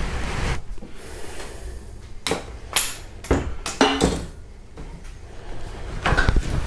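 Irregular metallic clinks and knocks of a socket and bar being worked on the cylinder head bolts of a Hyundai 2.4 GDI engine, pre-loosening them one by one. About half a dozen sharp strikes with a short ring, the loudest cluster near the end.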